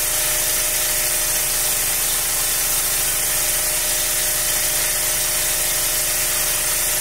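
Breeders Hacks neonatal nose-suction machine's electric pump running steadily on its lowest setting: a constant motor hum with hiss, as its tube draws mucus from a congested newborn puppy's nose.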